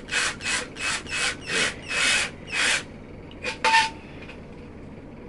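A screw turned by a 12-volt cordless drill driver grinds into a galvanized light-steel channel, rasping in regular strokes about three a second. The strokes stop about three seconds in, followed by two sharper scrapes.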